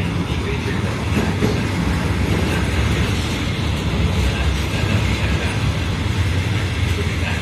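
Container freight train passing close by at a steady speed: the flat wagons' wheels make a continuous, even rumble on the rails.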